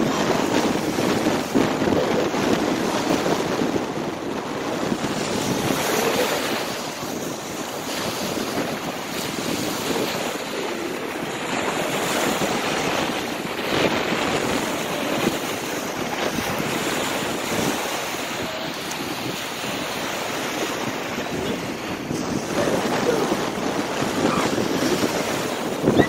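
Small waves breaking and washing up onto a sandy shore, a steady rushing wash that swells every few seconds, with wind on the microphone.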